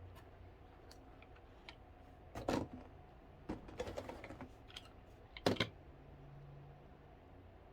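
A few light clicks and taps of hard plastic Beyblade parts and stadium being handled and set down, the loudest about two-thirds of the way through.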